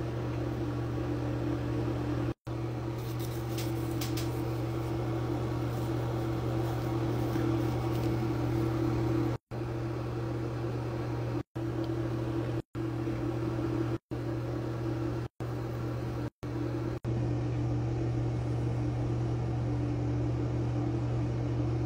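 A steady low mechanical hum with an even hiss, cut by about seven brief silent gaps.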